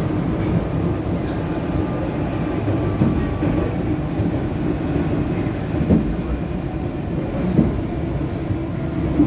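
EP2D electric multiple unit running along the track: a steady low rumble with a faint hum, broken by a few sharp knocks from the wheels and running gear.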